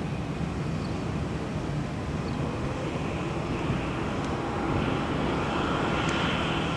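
Boeing 737-300 airliner's CFM56 jet engines rumbling as it rolls out along the runway just after touchdown, with the rushing noise growing louder about five seconds in.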